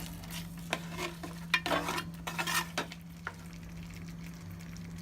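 A spoon stirring and scraping in a karahi of chicken simmering in cream, with several strokes in the first three seconds, then a low sizzle.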